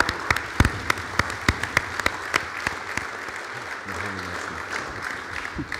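Audience applauding, with individual claps standing out; the applause tapers off near the end.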